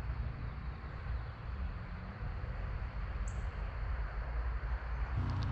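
Steady low outdoor background rumble, with one brief high chirp about three seconds in and the rumble swelling slightly near the end.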